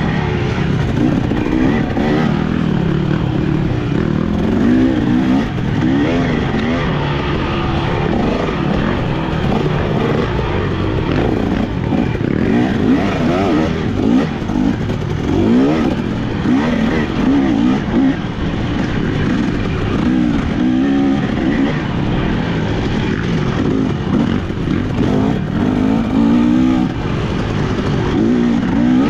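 Dirt bike engine being ridden hard, its revs climbing and dropping every second or two as the throttle is worked and gears change.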